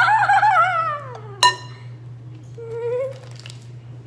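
A girl's high-pitched squeal, wavering and sliding down in pitch over about a second and a half, followed by a sharp ringing clink and, near three seconds in, a short softer vocal sound.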